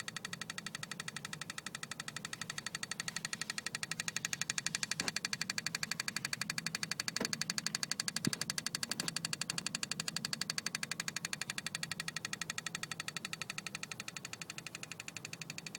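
Rapid, even ticking or buzzing from the engine bay of a BMW E36 320i with the ignition switched on to key position 2; it stops when the key is turned back to position 1 or 0. A few louder single clicks come in the middle. The cause is unknown to the owner.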